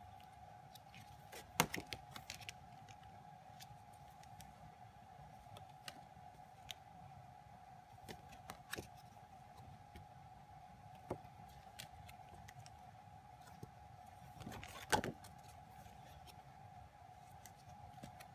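Stiff glossy photo cards being handled and flipped through by hand: scattered light taps and rustles, loudest about a second and a half in and again near fifteen seconds. A faint steady high-pitched hum runs underneath.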